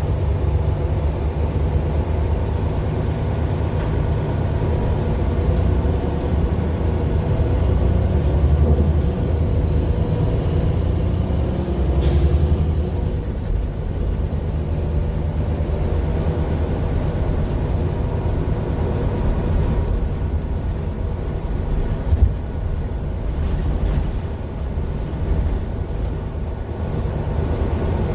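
Mercedes-Benz Citaro LE city bus with its Daimler OM 457 hLA six-cylinder diesel running, heard from inside the passenger cabin. The engine gives a steady low rumble that swells a little about eight seconds in, with a brief sharp sound about twelve seconds in and a few small knocks later.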